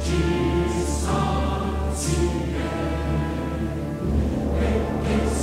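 Music: a choir singing long held chords over an orchestra, with the chords changing about a second in and again near four seconds.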